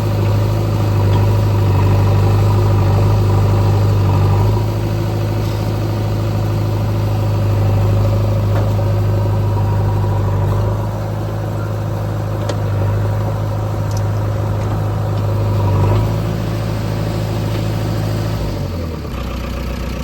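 Diesel engine running steadily with a deep hum, its level shifting a few times as the load changes, then dropping to a lower pitch near the end.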